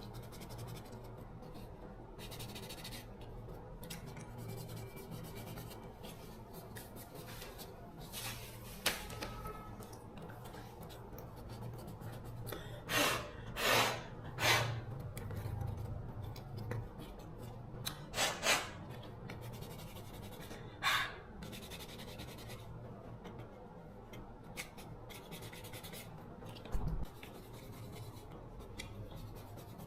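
Rubbing and scraping from hand work on a part, with a few short, sharper scraping strokes, three in quick succession near the middle, over a low steady hum, and a dull thump near the end.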